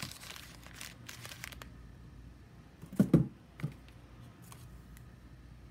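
Plastic-wrapped snack bars crinkling as they are handled and laid on a table, followed about three seconds in by a quick run of three soft thumps.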